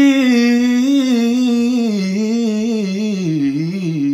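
A man singing a fast vocal riff unaccompanied: one unbroken run of many quick notes, wavering up and down as it winds steadily lower in pitch.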